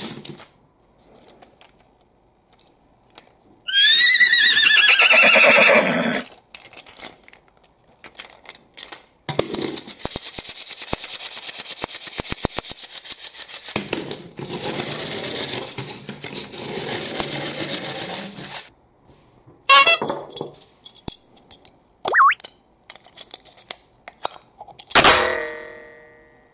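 Plastic toy train engine pushed along a tabletop: a wavering high tone that falls in pitch about four seconds in, then about nine seconds of fast, even rattling clicks. A few sharp knocks and a short falling tone come near the end.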